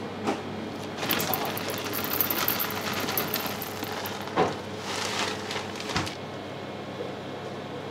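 Bakery kitchen work sounds: rustling and a few sharp knocks over a steady hum of kitchen equipment.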